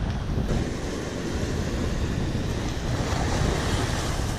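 Ocean surf washing against the shore, with wind buffeting the microphone in a steady low rumble.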